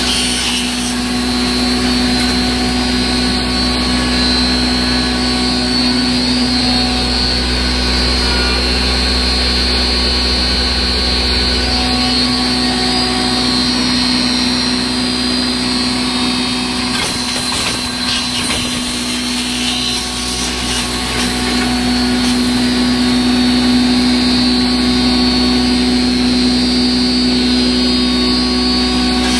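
Double-chamber herb grinder (pulverizer) running steadily: a loud mechanical hum with a high whine above it.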